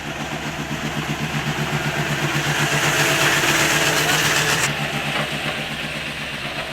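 An engine running steadily with an even throb. A loud rushing hiss swells over it and then cuts off abruptly a little past halfway.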